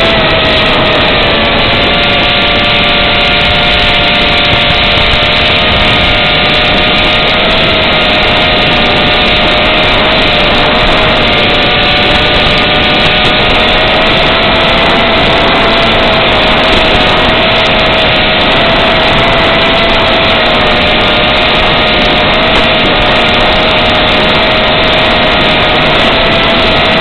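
Eachine Racer 250 quadcopter's brushless motors and propellers in flight, heard through the onboard camera over an analog video link: a loud, steady whine that wavers slightly in pitch with the throttle, under heavy hiss.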